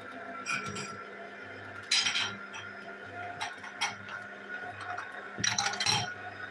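Slow cold-press juicer running with a steady low motor hum, its auger crushing pomegranate seeds with several sharp crackling, clinking bursts, the loudest about two seconds in and near the end.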